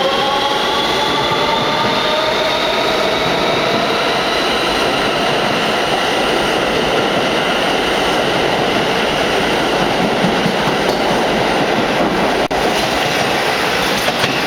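N train of R160B subway cars with Siemens propulsion, coupled to R160A-2 cars, accelerating out of the station past the platform. The traction motors whine in several tones that climb slowly in pitch over the first few seconds. The whine gives way to the steady rumble and clatter of wheels on the rail as the cars go by.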